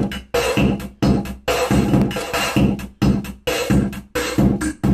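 Electronic music with a drum-machine beat and synthesizer, chopped into short stuttering bursts that start and stop abruptly about twice a second.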